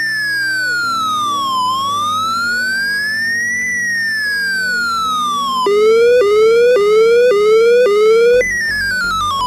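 Police-siren sound effect generated by a C program's sound() function: one electronic tone slowly wailing up and down, then switching about two-thirds of the way in to quick rising yelps about two a second, and near the end stepping down in pitch.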